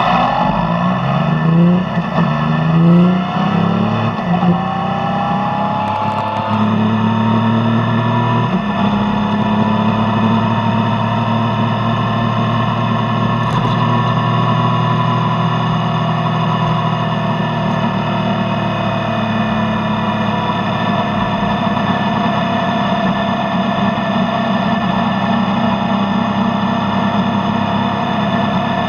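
Yamaha Tracer motorcycle engine through its stock exhaust, revved in three short blips over the first few seconds, then running at a steady speed.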